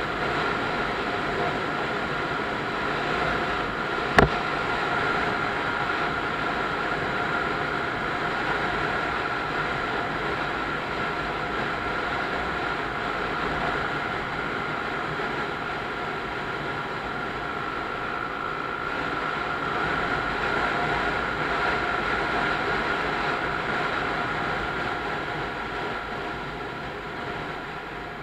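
Motorcycle riding at steady road speed: engine drone mixed with wind noise on the bike-mounted camera, with one sharp click about four seconds in. The sound grows quieter near the end as the bike slows for a roundabout.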